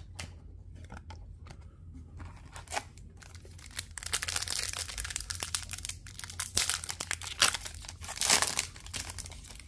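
Foil trading-card pack being pulled from its box and torn open: a few light clicks and rustles at first, then dense crinkling and tearing of the wrapper from about four seconds in, loudest in short bursts near the end.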